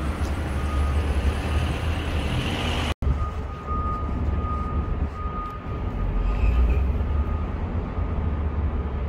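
Steady low rumble of apartment construction-site noise, measuring about 61 to 64 dB(A) on the site's noise display board, with a faint high steady whine over it. The sound drops out for an instant about three seconds in.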